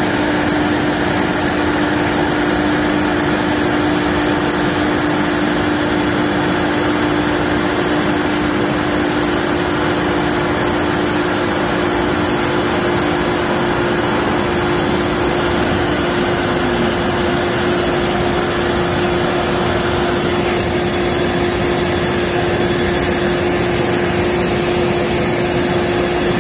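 CNC router cutting black plastic sheet: the spindle runs with a steady hum while the dust-collection vacuum draws air through the hose, making a loud, even noise. One of the two hum tones fades out about two-thirds of the way through.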